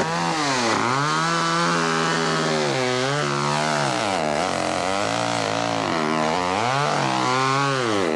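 A chainsaw running loudly and being revved up and down, its pitch dipping and climbing back again several times.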